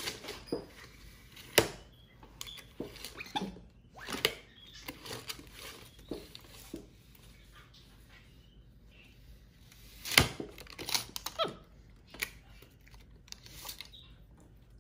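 Irregular clicks, knocks and rattles of a Stanley FatMax tape measure being handled by a capuchin monkey, its extended steel blade and case knocking against the plastic high chair. The sharpest knock comes about ten seconds in, with a quieter spell just before it.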